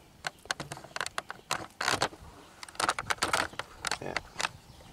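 Handling noise from a handheld camera being moved about: a string of irregular light clicks and scuffs.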